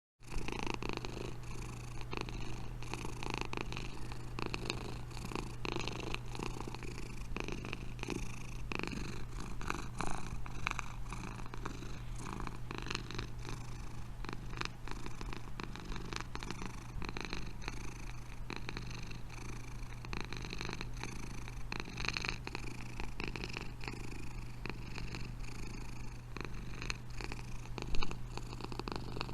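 Domestic cat purring steadily close to the microphone, with a short louder noise near the end.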